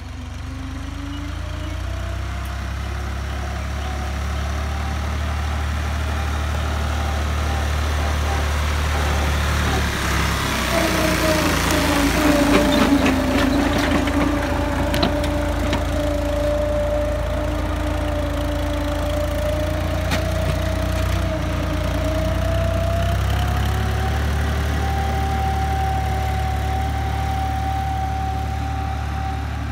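Farm tractor's diesel engine running steadily while pulling a tillage implement through the soil, growing louder as the tractor comes close, with a spell of rattling and clatter about halfway through at its nearest point.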